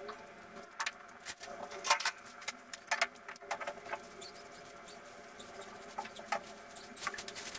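Scattered clicks, knocks and rustles of cleaning up: a cloth being handled and wire pet cages and plastic carriers being moved, over a faint steady hum.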